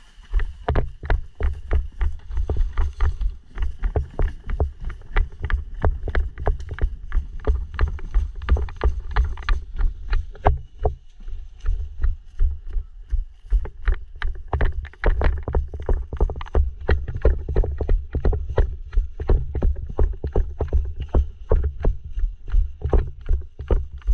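Footsteps of a person walking briskly, a steady run of thuds about three a second, with gear knocking and rustling against the camera microphone.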